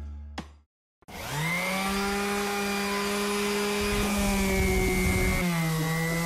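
Electric random orbital sander switching on about a second in, its motor whine rising as it spins up, then running steadily as the pad sands the end grain of 4x4 wood posts. The pitch drops slightly a little past five seconds in.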